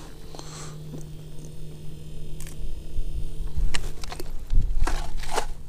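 Handling noise from small ice-fishing gear: a few scattered sharp clicks and knocks, with a couple of low bumps past the middle, over a faint steady low hum.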